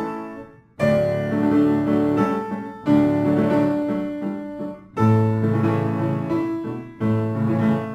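Background instrumental music of slow, sustained chords, a new chord struck about every two seconds and fading away.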